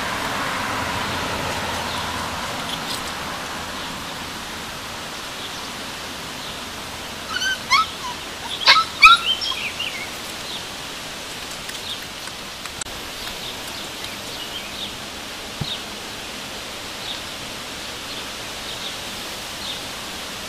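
Rhodesian Ridgeback puppies nursing, giving a quick run of short high squeals and yelps about seven to ten seconds in, over a steady outdoor hiss.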